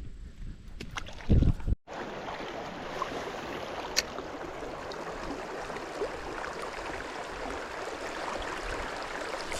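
Steady rush of flowing river water. In the first two seconds there are a few knocks and a brief low thump, and a single sharp click comes about four seconds in.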